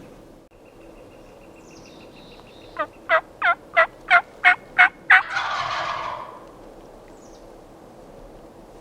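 A series of eight hen-turkey yelps, evenly spaced at about three a second and growing louder, followed at once by a male wild turkey gobbling in answer, a rattling call lasting about a second.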